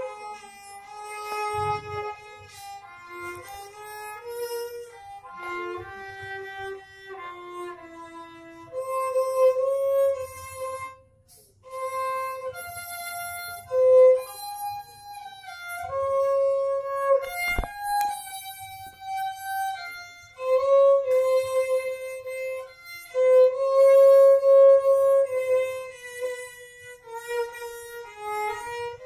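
Violin bowing a slow melody in mostly long held notes, with a short pause about eleven seconds in and a sharp click a little past halfway.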